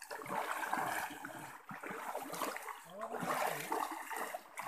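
Shallow river water sloshing and splashing around the legs of several people wading through it.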